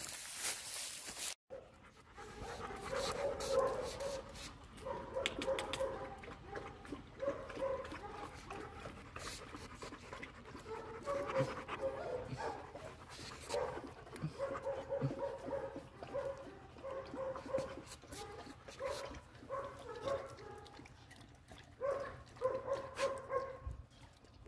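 A large Labrador–Maremmano cross dog panting in quick, repeated breaths with a slight whining tone in them. A short hiss comes at the very start.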